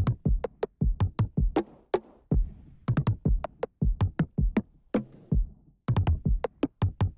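Electronic background music: a fast, steady drum-machine beat with synthesizer.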